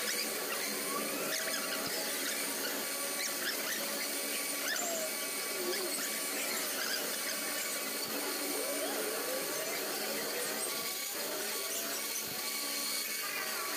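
Metal lathe running and cutting, a steady machine hum with a wavering, sliding squeal from the cutting tool on the workpiece.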